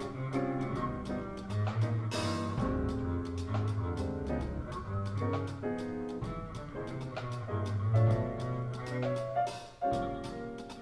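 Small jazz combo of alto saxophone, piano, plucked upright bass and drum kit playing live, with steady cymbal ticks over a walking bass. A cymbal crash about two seconds in and another near the end.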